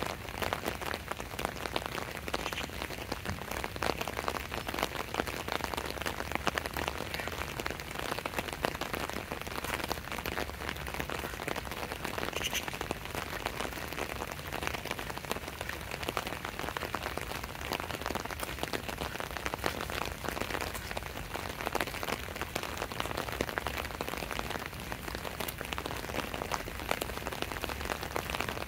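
Steady rain falling, a dense even spatter of individual drops hitting hard surfaces.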